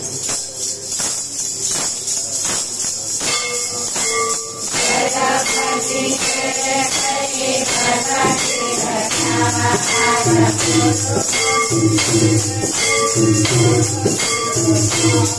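Hand-held kartal clappers beating a steady rhythm, joined about four seconds in by a group of women singing a devotional bhajan in chorus.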